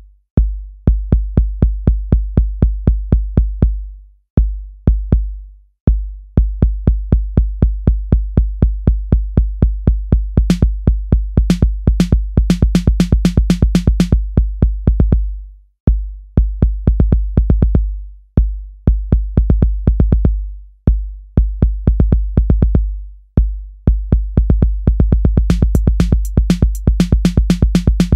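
Electronic background music: a drum-machine beat over deep bass and synthesizer, with quick runs of high ticks about halfway through and again near the end.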